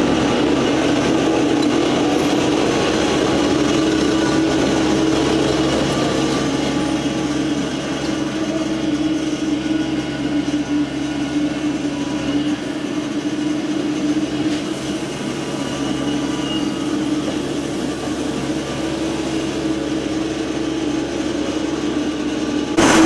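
Mini skid steer's engine running steadily while working, a constant drone with a strong hum. It gets abruptly louder just before the end.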